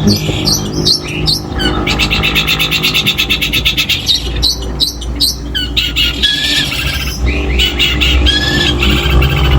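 Long-tailed shrike (cendet) singing a loud, varied song stuffed with mimicked calls of other birds. A fast rattling trill runs from about two to four seconds in, and clear short whistles follow near the end, over a low steady hum.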